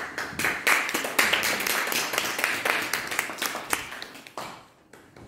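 Audience applauding, a run of rapid overlapping claps that dies away about four and a half seconds in.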